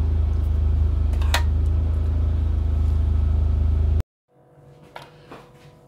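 Oven fan running with a steady low hum and hiss, with a single click about a second and a half in. The hum cuts off abruptly about four seconds in, leaving quiet with a few faint knocks.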